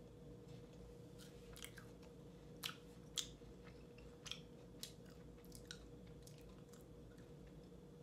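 A person chewing a bite of a KitKat wafer bar with the mouth, making faint wet lip-smacking clicks at an irregular pace, with a few louder smacks about three seconds in.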